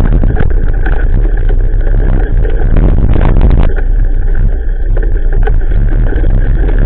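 Bicycle ride on a gravel path heard through an action camera's microphone: heavy wind buffeting makes a constant low rumble, with dense rattling and clatter from the bike jolting over the gravel.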